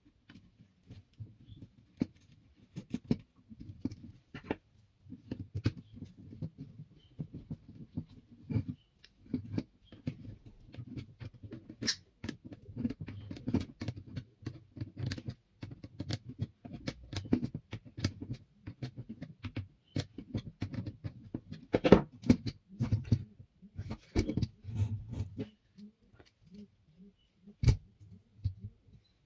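Small hard parts and tools being handled by hand: irregular clicks and taps over a low rustle, with one louder knock about three quarters of the way through.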